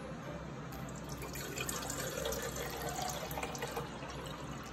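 A stream of water pouring into a plastic water bottle, swelling about a second in.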